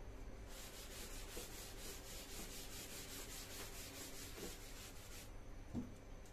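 Blackboard eraser wiping chalk off a chalkboard in quick back-and-forth strokes, about six a second, stopping about five seconds in.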